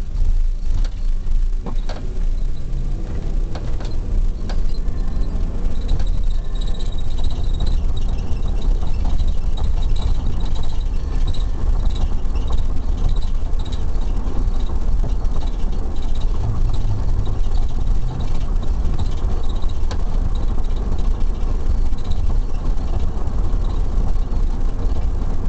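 Police patrol car driving, a steady low rumble of engine and road noise heard from inside the cabin, with a few clicks near the start.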